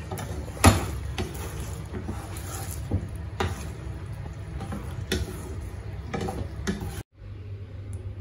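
Wooden spatula stirring potato dumplings through a thick sauce in a nonstick frying pan, knocking against the pan several times. The stirring cuts off abruptly about a second before the end, leaving only a faint low hum.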